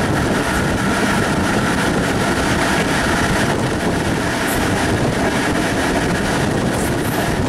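First-series FS E656 'Caimano' electric locomotive E656.030 under power hauling its coaches, heard at close range through the gangway: a loud, steady rolling and running noise of the locomotive and wheels on rail. A higher-pitched part of the noise fades away about halfway through.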